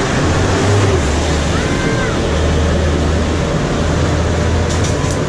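A motor vehicle engine running with a low steady hum under a loud, dense wash of noise, with a brief high squeak about a second and a half in.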